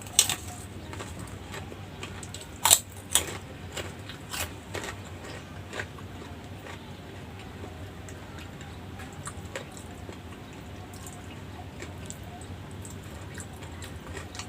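Close-miked eating sounds: chewing with a string of short sharp clicks and crunches, loudest in the first few seconds and fainter and sparser after that, over a low steady hum.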